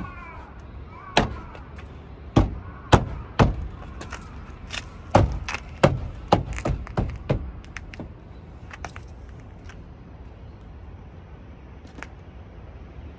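Car door trim panel being knocked into place by hand, its plastic clips snapping home: a run of sharp knocks and thumps over the first seven seconds or so, then only a few faint taps.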